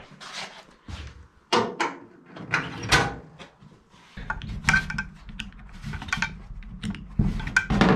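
A run of separate clicks and light metallic knocks as a screwdriver works the quarter-turn Dzus fasteners on an aluminium race-car bonnet and the bonnet-mounted air cleaner is handled.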